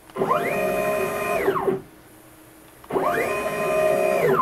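Stepper motors of a homemade CNC router making two rapid moves at over 1,000 inches a minute. Each move is a whine that rises in pitch as the motors ramp up, holds steady, then falls as they slow to a stop; the second starts about three seconds in.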